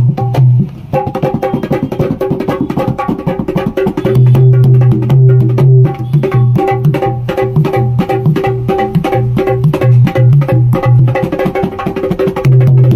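A rope-laced dholak played fast by hand in a rhythmic pattern. Quick slaps on the treble head ring at a steady pitch, over deep, sustained strokes on the bass head that carry through most of the second half.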